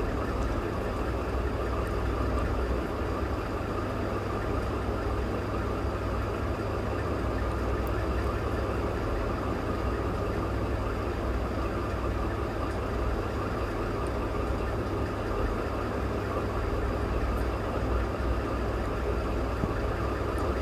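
Sewing machine running steadily, stitching a fabric strip down the centre of a neck piece, with a constant low hum and no pauses.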